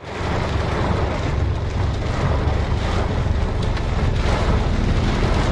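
Heavy rain pelting the car's roof and windscreen, heard from inside the car: a dense, steady patter over a low rumble.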